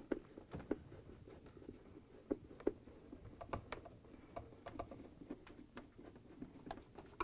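Faint, irregular small clicks and light scratching from a hand-turned Phillips screwdriver backing screws out of a plastic refrigerator panel, several ticks a second.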